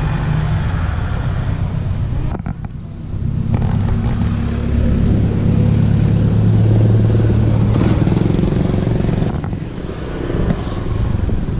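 A motorcycle engine running as it passes close by, a steady low hum that builds, is loudest about halfway through and fades away a couple of seconds before the end, over general street traffic noise.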